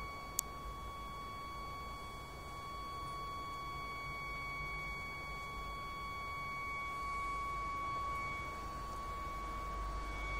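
A strange, annoying tone from outside: one unchanging high-pitched whine with fainter overtones above it, over a low background rumble. A single sharp click comes about half a second in.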